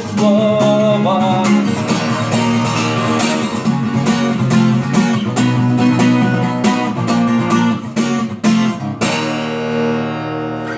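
Acoustic guitar strummed in a steady rhythm, with a voice singing over the first second or two. About 9 s in, the strumming stops on a final chord that rings out.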